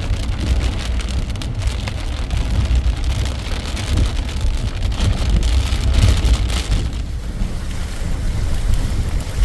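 Heavy rain pouring down, with wind buffeting the microphone in a steady low rumble.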